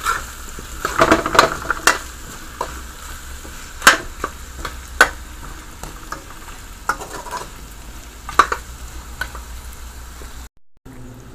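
Beef and potatoes sizzling as they fry in oil, with a spoon scraping and knocking against the pot now and then as they are stirred.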